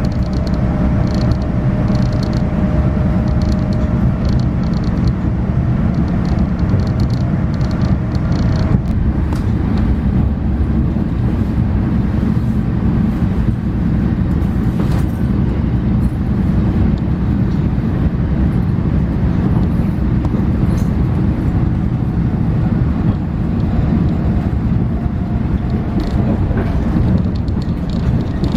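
Steady low rumble of a Long Island Rail Road train running, heard from on board, with a faint steady whine over the first nine seconds or so.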